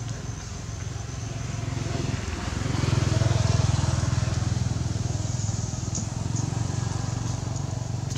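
A motor vehicle engine runs steadily with a low hum. It grows louder about two and a half seconds in, then eases off a little, like a vehicle passing close by.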